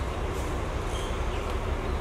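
Passenger train running away over the rails, a steady low noise with no separate clicks or knocks.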